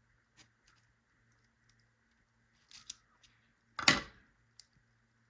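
Small metal lock parts and tools clicking and scraping as a lock core is worked out of its housing. A few light clicks, then a louder sharp click about four seconds in.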